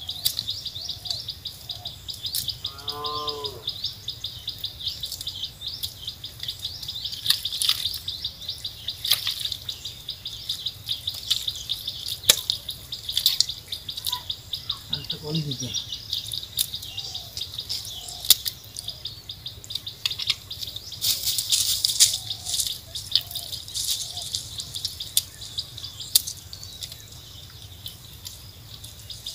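A steady high insect drone with scattered short clicks and squelches from hands digging through wet mud. A cow lows briefly about 3 s in, and again about 15 s in with a call that falls in pitch.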